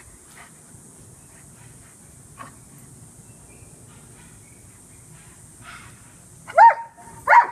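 A German Shepherd giving two short, high-pitched yelps near the end, over a faint steady background.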